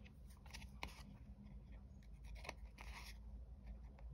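Faint scissor snips trimming the overhanging edge of a paper sticker on a card, with light paper handling; a short scratchy cut comes about three seconds in.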